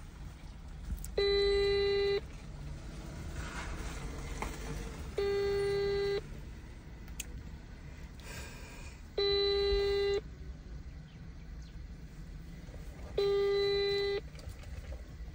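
Ringback tone from a mobile phone on speaker while an outgoing call rings unanswered: four steady tones, each about a second long, one every four seconds.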